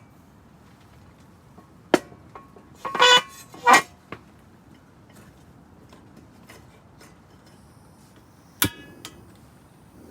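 A few sharp knocks and short metallic clinks of hard objects being handled and set down: a click about two seconds in, two ringing clinks a second later, and one more clink near the end.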